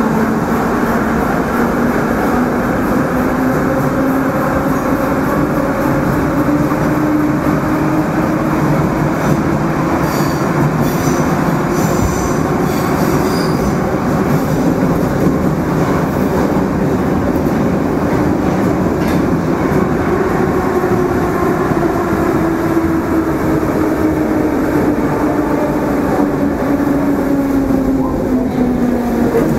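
Metro train running through a tunnel, heard from inside the carriage: a steady rumble of wheels under the whine of the traction motors. The whine rises in pitch as the train gathers speed, then falls near the end as it slows into the station. There is a brief high squeal about ten seconds in.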